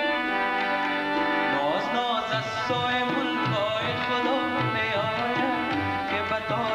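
Live harmonium and tabla: the harmonium holds sustained reedy notes, and the tabla comes in a little after two seconds with low bass-drum strokes under the melody.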